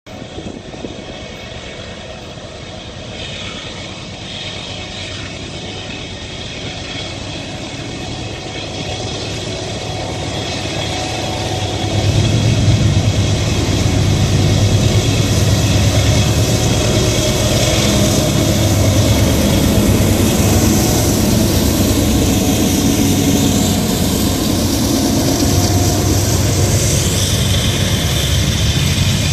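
Norfolk Southern diesel locomotives hauling a loaded coal train, approaching and growing steadily louder, then passing close by about twelve seconds in and running loud and steady as the hopper cars follow.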